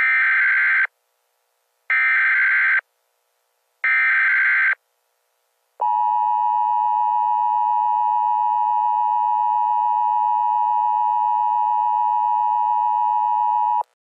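Emergency Alert System signal: three short bursts of SAME header data tones, about two seconds apart, then the EAS two-tone attention signal (853 and 960 Hz together) held steady for about eight seconds and cutting off sharply. This sequence marks the start of an emergency alert, here a National Weather Service flash flood warning.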